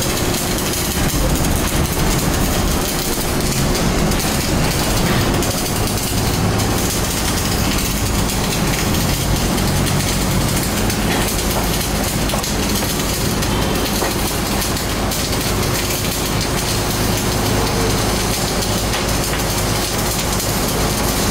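Wire-feed (MIG) welding arc crackling and hissing steadily, without a break.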